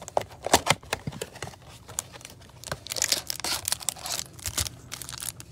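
Crinkling plastic wrapper and rubbing cardboard as a cello-wrapped stack of trading cards is slid out of a cardboard hanger box. It makes a busy run of small crackles and clicks, thickest about three to four and a half seconds in.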